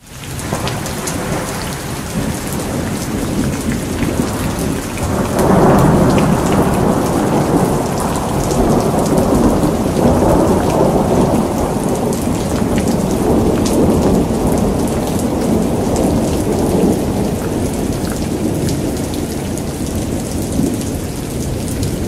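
Heavy rain pouring down on leaves and wet paving, with close drops ticking sharply. Low thunder swells in about five seconds in and rumbles on in waves for much of the rest.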